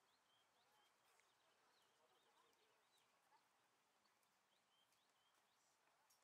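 Near silence: faint outdoor ambience with a few faint, short, high bird chirps scattered through it.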